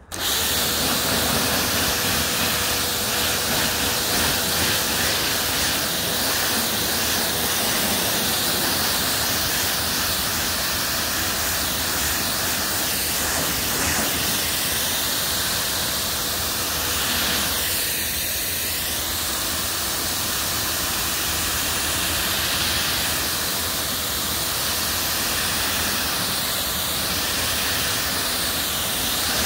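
Pressure-washer lance spraying a steady jet of water onto a car's bonnet, rinsing over freshly applied wet-coat sealant; a loud, even hiss that starts abruptly.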